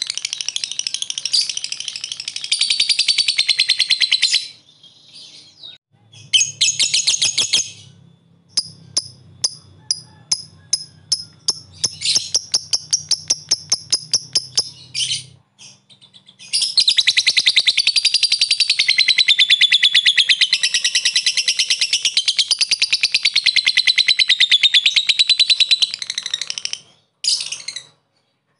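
Lovebird singing its ngekek: fast, high rattling chatter in bursts. Partway through it breaks into a run of separate clicking ticks (ngetik), about three to four a second, then goes back into a long unbroken chatter of about ten seconds.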